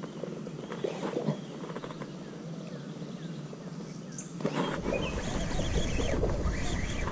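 Faint outdoor ambience with short bird chirps. From about two-thirds in, a low wind rumble on the microphone rises.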